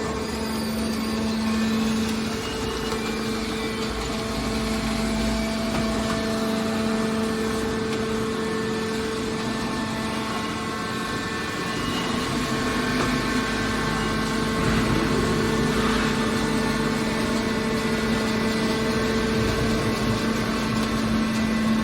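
Hydraulic can baler's power unit running: a steady machine hum with a constant pitched drone, the motor and hydraulic pump working under a slowly changing load.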